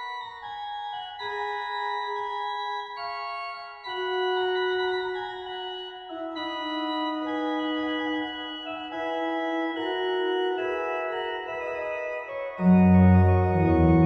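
Sampled Schnitger pipe organ, played through a Hauptwerk virtual organ, performing a Baroque chaconne: sustained chords and moving lines in the middle and upper range. Near the end, loud deep bass notes come in.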